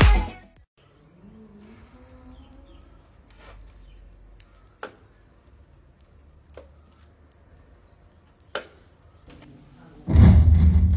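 Intro music cuts off, leaving a faint background with a few sharp clicks. About ten seconds in, a sudden loud noise breaks in as a woman balancing in the splits between two wooden chairs falls to the ground.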